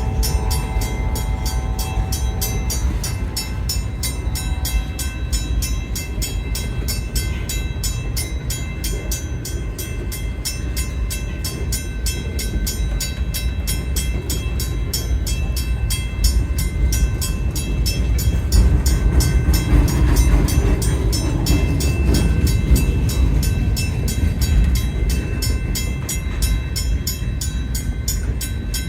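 A train rolling past with a steady, heavy low rumble that swells a little past the middle, under background music.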